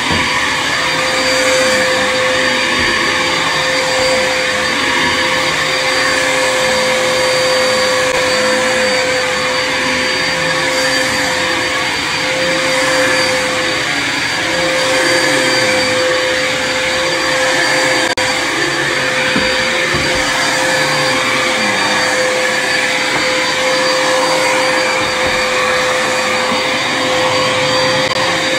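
Upright vacuum cleaner running on carpet, with a steady motor whine. It is pushed back and forth in strokes, so the sound swells and eases every couple of seconds.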